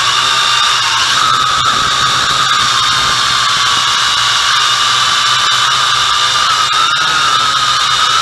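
MJX X101 quadcopter's motors and propellers whining steadily, heard close up from the onboard camera, the pitch wavering slightly as the throttle changes, over a steady hiss.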